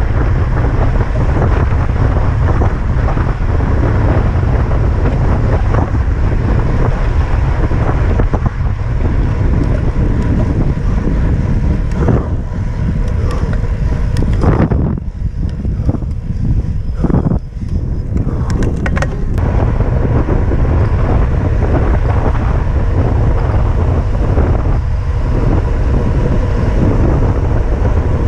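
Loud, steady wind buffeting on the microphone of a camera riding along on a bicycle at speed, heaviest in the low rumble. The wind eases briefly about halfway through.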